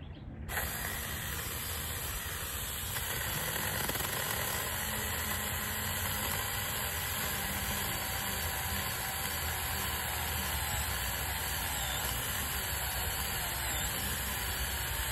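JPOWTECH 21-volt cordless mini chainsaw running and cutting through a thick branch. It starts about half a second in, runs steadily, and cuts off suddenly at the end.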